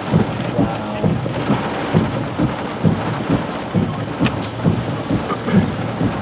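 Heavy thunderstorm rain and gusting wind from a tornado-producing storm, a steady wash of noise broken by frequent irregular low thuds several times a second.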